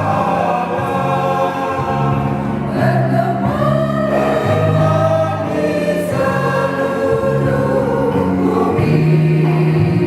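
Church choir singing a hymn in parts, several voices in harmony over held low notes that change every second or two.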